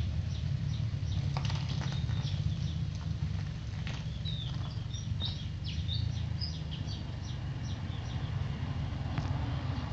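A steady low engine-like hum, with small birds chirping in short high calls through the first half or so.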